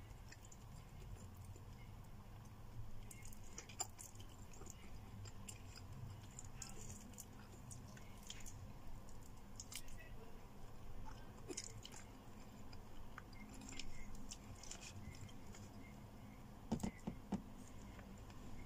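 Close-up sounds of a person eating with her fingers: soft chewing and mouth sounds with scattered small clicks, and a few louder clicks near the end.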